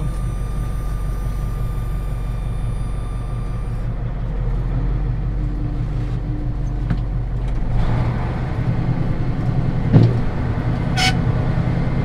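Ford 8000 truck's engine running, heard from inside the cab; about eight seconds in its sound changes and grows a little louder as the truck moves off. A single clunk comes about ten seconds in, and a short hiss about a second later.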